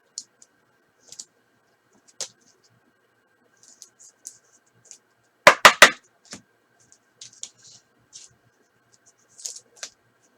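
Prizm football trading cards being handled between call-outs: faint scrapes and ticks of cards sliding over one another and being set down, with a louder cluster of three sharp clicks about halfway through.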